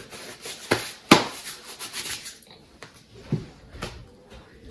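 Paper rustling as it is handled, broken by several sharp knocks and taps, the loudest about a second in.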